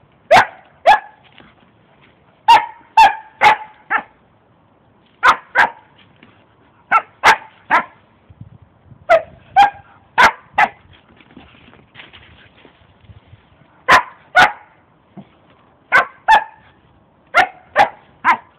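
A dog barking repeatedly: short, sharp barks in bursts of two to four, about twenty in all.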